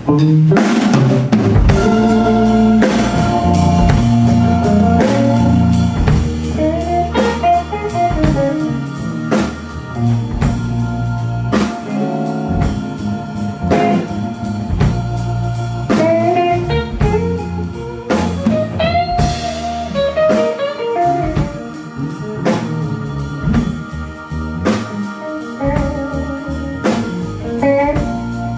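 Blues band playing live: a Les Paul–style electric guitar plays lead lines with notes bent up and down over drums, electric bass and keyboard. It is the instrumental opening of the song, with no singing, and the band comes in all at once at the start.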